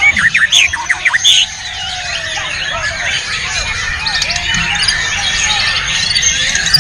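White-rumped shama singing close up: a run of loud, sharp, quickly rising notes in the first second and a half, then more song over a dense chorus of many other birds singing at once.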